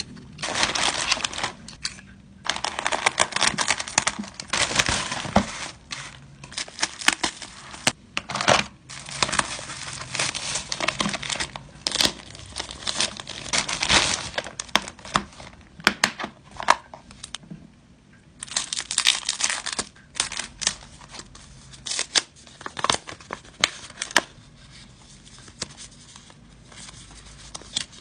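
Packaging being unwrapped and handled by hand: irregular crinkling and rustling with sharp clicks and tearing, easing off briefly about two-thirds in and quieter near the end.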